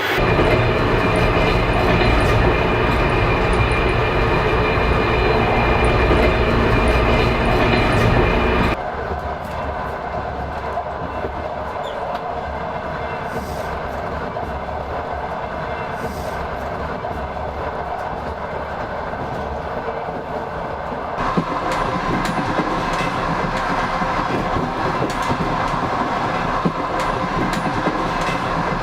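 Passenger train running on the rails: a steady rumble with the clatter of the wheels. The sound changes abruptly twice, becoming quieter and thinner about nine seconds in and brighter again after about twenty-one seconds.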